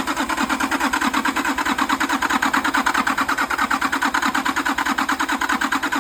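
Nissan RD28 straight-six diesel turning over on its starter motor, an even rhythmic cranking at about six or seven beats a second, without firing. The engine won't catch, which the owner puts down to air in the fuel system and fuel pressure not holding.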